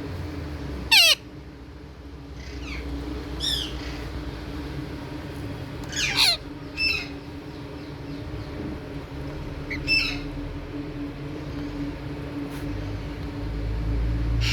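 Pet Indian ringneck parrots giving short, harsh squawks that drop steeply in pitch: a loud one about a second in, two more around the middle, another about ten seconds in, and fainter calls between. A steady low hum runs underneath.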